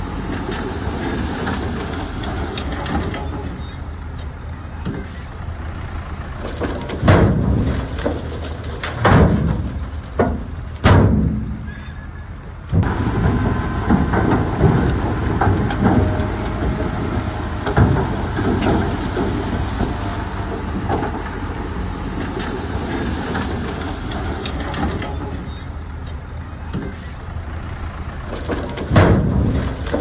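Heavy earthmoving machinery running steadily, its engine rumble constant, with several loud knocks or clanks about seven, nine and eleven seconds in and again near the end.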